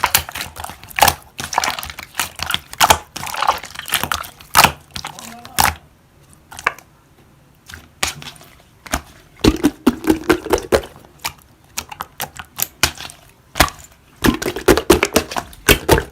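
Slime being squeezed and pressed by hand, giving a run of sharp crackling pops and clicks, with a quieter spell about six seconds in.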